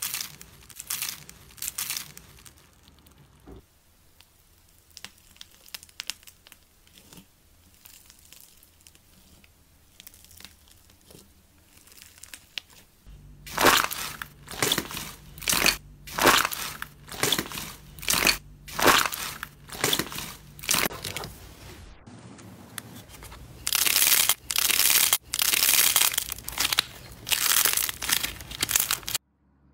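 Crunchy slime being squeezed and pressed by hand, giving crackling crunches. Faint crackles come first, then from about halfway loud crunches follow at a steady pace of a little more than one a second, and near the end come longer, denser stretches of crackling.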